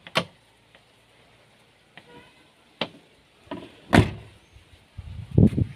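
Isuzu Panther's door being handled: a few light clicks and knocks, then shut with one loud thud about four seconds in.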